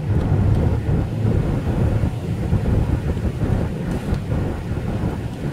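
Steady low road and wind noise inside a moving car's cabin, its tyres running on wet pavement.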